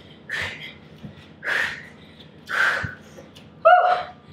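A woman breathing hard through a fast bodyweight HIIT exercise: three sharp exhalations about a second apart, then a short, louder voiced grunt-like sound near the end.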